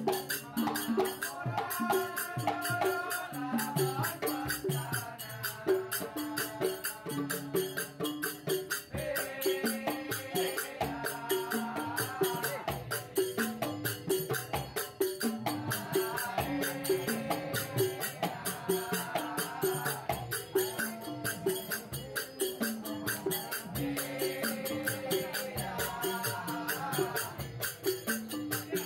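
Music with a fast, steady percussion beat under a melody line that moves in short phrases.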